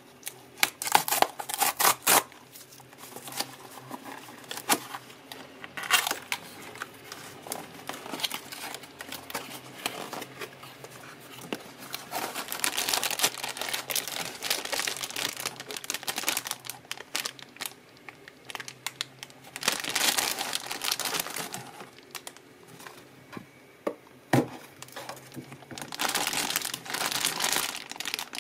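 Cardboard box torn open along its pull-tab strip, then small plastic bags of repair tools crinkling as they are lifted out and handled, in irregular bursts of rustling with a short knock about three-quarters of the way through.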